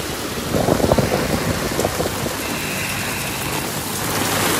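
Heavy monsoon rain pouring steadily, drumming on tarpaulin and splashing on a flooded concrete yard, with a flurry of louder patters and knocks about a second in.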